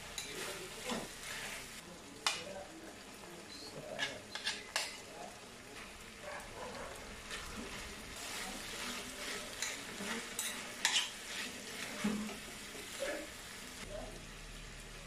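Chicken and vegetables sizzling in a metal frying pan while a utensil stirs them, with scattered scrapes and taps of the utensil against the pan.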